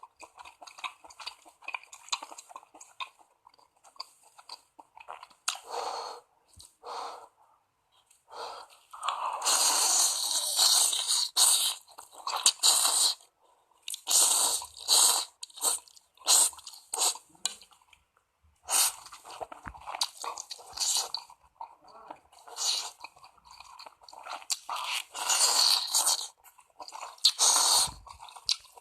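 A person eating ramen close to the microphone: chewing and slurping noodles in irregular bursts, with several longer slurps lasting a couple of seconds each.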